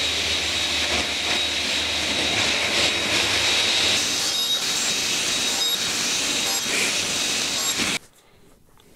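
A woodworking power tool running steadily under load, cutting off abruptly about eight seconds in.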